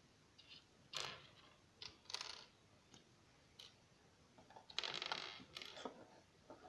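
Small Lego plastic bricks handled and pressed together: scattered light clicks, with a longer burst of rattling about five seconds in.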